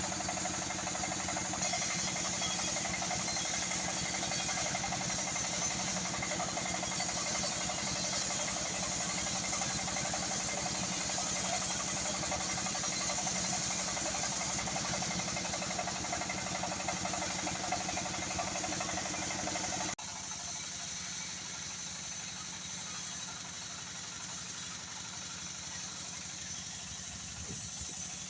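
Sawmill machinery running steadily while sawing old teak wood: a motor hum with a higher saw noise over it. About two-thirds of the way through, the sound drops abruptly to a quieter, duller hum.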